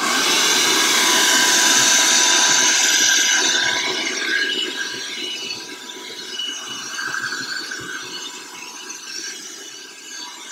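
Handheld vacuum cleaner switched on and running, sucking up wood sanding dust from a model ship hull. It is loudest for the first few seconds, then runs quieter and uneven as the nozzle works over the hull.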